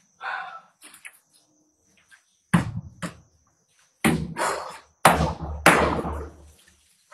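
A run of loud, sudden thuds and knocks, irregularly spaced: two about two and a half to three seconds in, then three heavier ones with a deep low end between four and six and a half seconds in, each dying away over about half a second.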